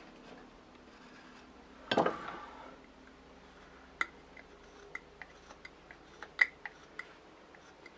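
Carving knife making short, sharp cuts into a small wooden figure: about a dozen crisp clicks, irregularly spaced, after a louder clatter about two seconds in.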